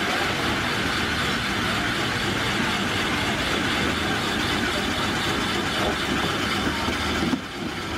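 Electric shaved-ice machine running, its blade grinding down a block of ice into a bowl: a loud, steady, harsh scraping with motor noise underneath. The noise drops sharply about seven seconds in.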